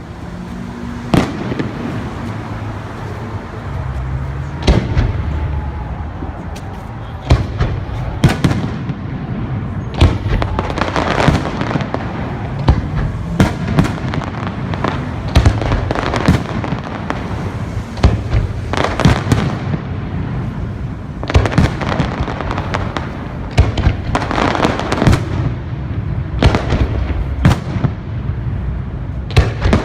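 Fireworks display: aerial shells bursting one after another, sharp bangs at uneven intervals that come thicker and faster after the first several seconds, over a continuous rumble and crackle.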